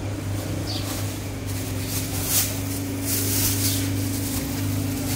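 A steady low mechanical hum runs throughout, with short crinkles and rustles of a foam takeaway box and a thin plastic bag being handled and opened.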